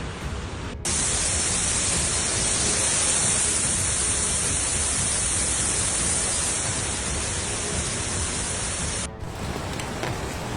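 Heavy downpour of rain, a dense steady hiss. About a second in it cuts to a louder, brighter rush that drops back abruptly near the end.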